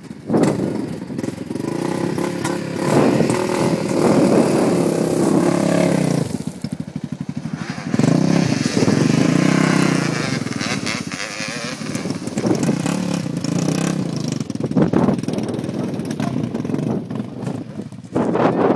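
Yamaha YZ250 two-stroke single-cylinder dirt bike engine revving hard in long surges, the pitch rising and falling as the throttle is worked. It drops to a choppy low-revving patch about six seconds in, then picks up again.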